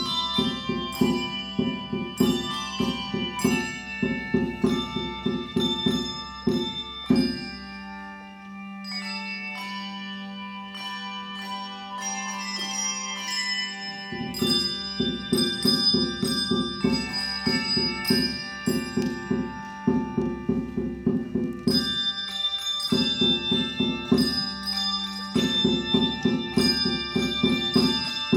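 Handbell choir playing a piece: many bells ringing in a quick, even pulse of notes. About a third of the way through, the pulse drops away under a held low note for several seconds, then the rhythmic ringing comes back.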